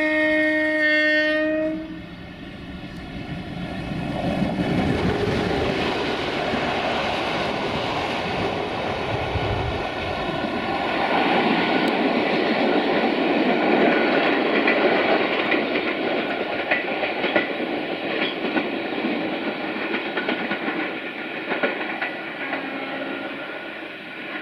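060-DA (LDE2100) diesel-electric locomotive hauling a passenger train sounds one long horn blast that stops about two seconds in. It then runs past, a rising pass-by with a deep engine rumble up to about ten seconds in. After that the coaches roll by, their wheels clicking over the rail joints as the train pulls away.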